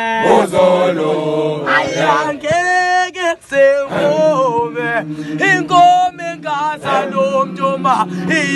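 A group of voices singing a gwijo, a South African group chant song, several voices together with pitch that bends and wavers.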